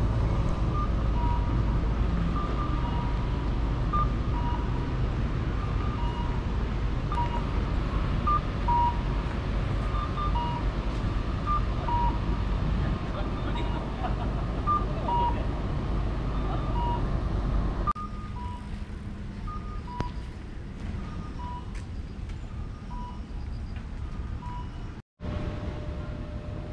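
City street traffic rumble with short electronic beeps repeating about twice a second. About two-thirds of the way through the rumble falls away, leaving quieter street ambience with the beeps still going. A brief dropout comes near the end.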